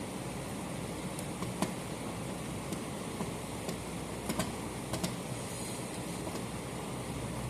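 Light, irregular clicks and taps of hand-handled hardware while a fire alarm pull station is being mounted, over a steady background hum.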